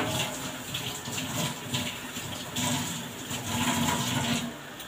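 Kitchen tap running into a sink with water splashing, switched on abruptly and shut off shortly before the end.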